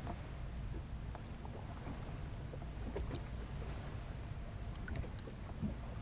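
Bass boat sitting on the water: a steady low rumble with a few faint taps and ticks on the hull and deck.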